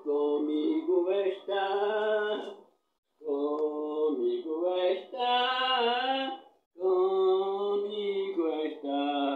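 An elderly woman singing unaccompanied in three long, slow phrases with brief breaths between them.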